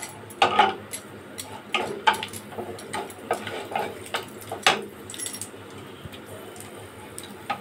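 A wooden spatula knocking and scraping against a kadhai while whole garam masala is stirred in hot ghee: a run of irregular clicks and taps that thins out after about five seconds.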